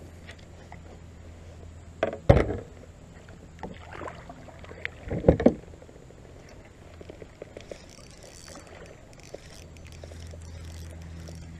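Knocks and bumps against a fishing kayak's hull as the angler moves about in the boat, with two louder thumps about two and five seconds in and lighter ticks between.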